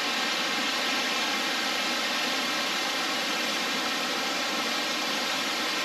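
Waterfall rushing steadily, water pouring over rocks. The noise is loud enough to make a voice hard to hear.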